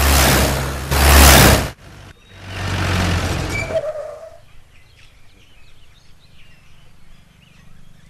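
A jeep drives in on gravel: two loud rushes of engine and tyre noise in the first four seconds, the second ending in a short brake squeal as it pulls up. Then birds chirp faintly.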